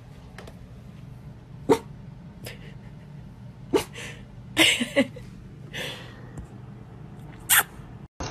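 A dog making about six short, sharp sounds spread a second or so apart, over a low steady hum.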